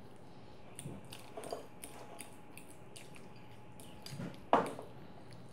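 A metal fork scraping and tapping against a glass bowl while mashing soft goat cheese: a string of faint light taps, with one louder clink about four and a half seconds in.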